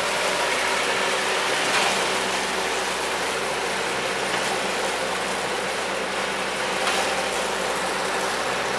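Engine running steadily at an even speed, with a constant hum.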